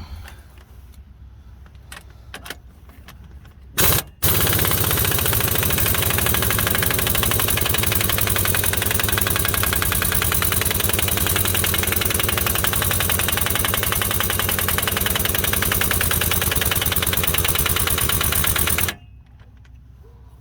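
Impact wrench hammering as it drives the wheel hub's mounting bolts home: a short burst about four seconds in, then one long continuous run of about fifteen seconds that stops abruptly.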